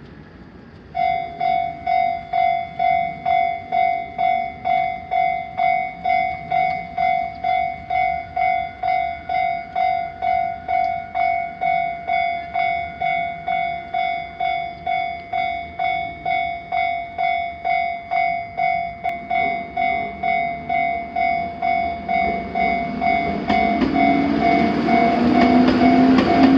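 Japanese level-crossing alarm starting about a second in and ringing with an even ding-ding, about two strikes a second: the crossing warning a train is coming. Over the last several seconds the approaching train grows louder, with a rising whine under the bell.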